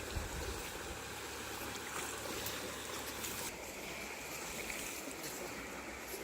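Water of a shallow forest stream running steadily, an even rushing hiss.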